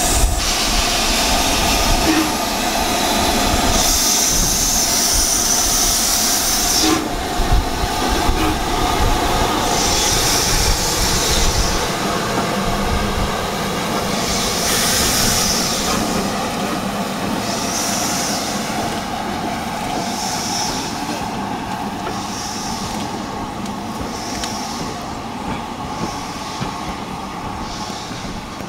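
LMS Stanier Black Five 4-6-0 steam locomotive moving off, with a long hiss of steam from its open cylinder drain cocks. Then come separate exhaust chuffs, gradually quicker and fainter as it draws away.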